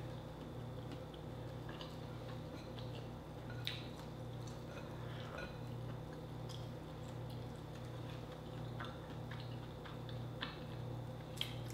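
Quiet eating sounds: chewing a grilled mushroom, with scattered small clicks and ticks, two of them sharper, about four seconds in and near the end, over a steady low hum.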